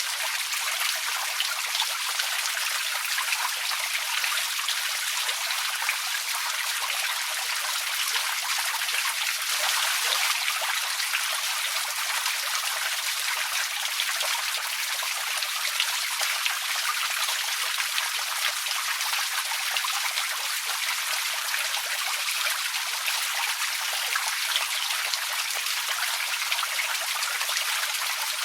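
Outdoor water fountain: water falling and splashing steadily, an even hiss of spray with no change throughout.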